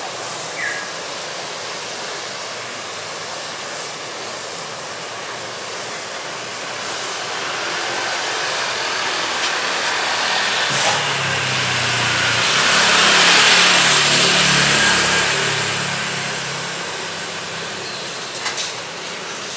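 A motor vehicle's engine passes close by, growing louder for several seconds, peaking about two-thirds of the way through, then fading, over a steady hum of street noise.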